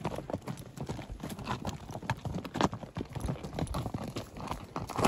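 Several horses' hooves clopping on a rocky dirt trail as the horses walk in single file, with irregular, overlapping hoof strikes.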